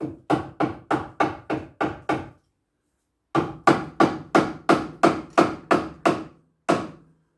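Hammer blows on metal on a car's front suspension, about three sharp ringing strikes a second: a run of eight, a short pause, then about ten more.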